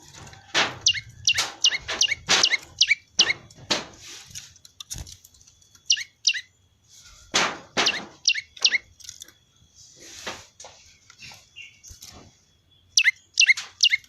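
Prenjak (prinia) of the 'ceng-ceng lumut' variety calling: bursts of short, clear chirps, each sweeping quickly down in pitch, repeated several times a second with pauses between bursts, among a few sharp thumps.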